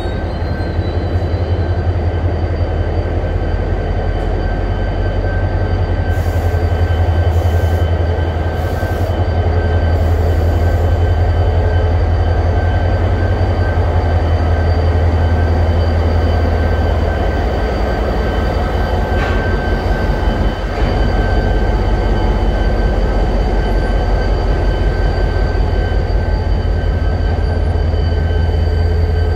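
EMD GP30 diesel-electric locomotive (Western Maryland 501) idling at close range with a loud, steady deep engine rumble. A faint, constant high whine sits over it.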